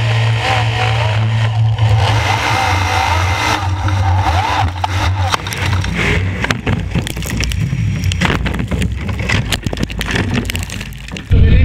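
Onboard sound of a Formula Offroad car's nitrous-injected LS3 V8 running hard, with mud and water spraying and the chassis clattering with many sharp knocks over the rough, wet ground. Near the end it is cut off abruptly by louder music.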